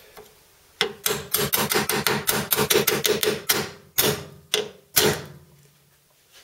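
A steel wedge being hammered into a drilled-out spot-welded seam on a VW T25 scuttle panel: a quick run of light metal-on-metal taps, about six a second, then three harder, spaced blows with a short ring from the panel. The wedge is splitting the two welded panels apart.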